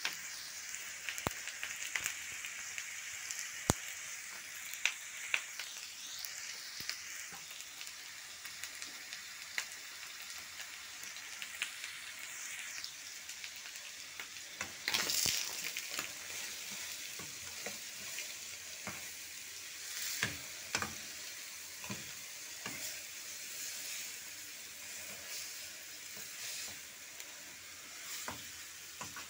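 Fish roe and chopped onion sizzling in oil in a metal frying pan, a steady hiss with scattered sharp pops. A spoon scrapes and stirs the pan now and then, mostly in the second half.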